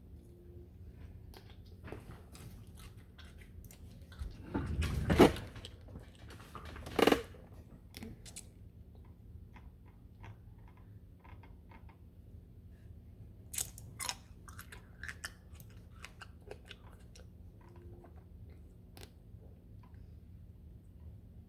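A person eating cherry tomatoes: biting and chewing close to the microphone, loudest about five seconds in and again about seven seconds in, with scattered small clicks between.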